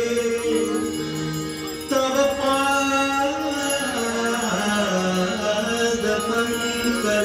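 Devotional aarti music: a sung melody over held instrumental tones.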